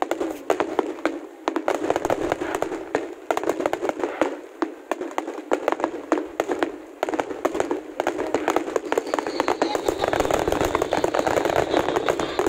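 Aerial fireworks going off in quick, irregular succession: sharp pops and bangs, thickening into a near-continuous crackle in the last few seconds.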